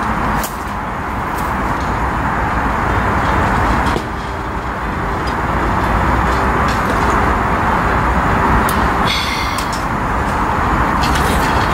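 Steady road traffic noise, with a few short clicks.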